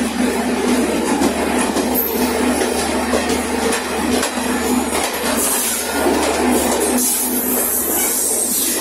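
Express train coaches rolling past close by on the adjacent track: a steady rumble of wheels on rail with repeated clicks as the wheels cross rail joints, and a faint steady wheel whine.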